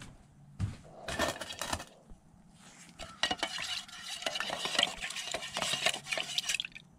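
A few knocks, then from about a third of the way in, a wooden stir stick scraping and knocking round the inside of a metal paint can as thick paint is stirred.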